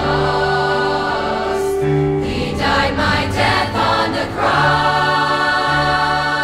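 Youth choir singing a Christian song in full harmony. Long held chords are broken about halfway through by a short run of crisp sung consonants, then settle into held notes again.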